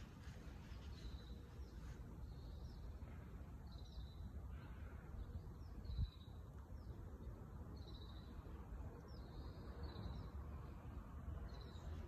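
A bird giving a short, high call over and over, about every two seconds, against a low outdoor rumble. A single thump about six seconds in.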